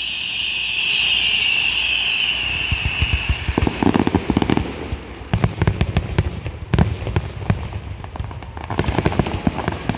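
Aerial fireworks: a steady high whistle that fades out about three seconds in, then clusters of rapid crackling and popping bursts.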